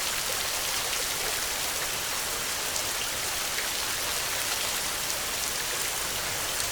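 Heavy rain falling steadily: a dense, even hiss scattered with many small drop ticks.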